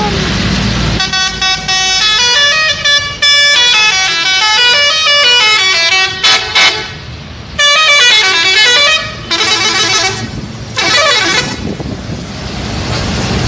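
Bus 'telolet' musical horn playing a quick tune of changing notes in several loud bursts, the later notes gliding up and down, with a low traffic rumble underneath.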